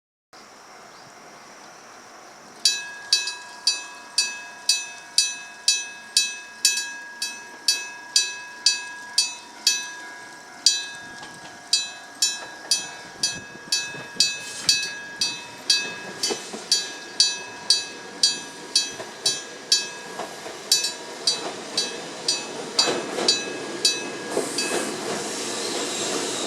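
Gong-type level-crossing alarm bell, a Kyosan AC electric bell (type EG1003A, built 1970) that really strikes a bell, starting about three seconds in and struck about three times a second, each strike ringing on. Near the end the strikes stop and the rising hiss and rumble of an approaching train takes over.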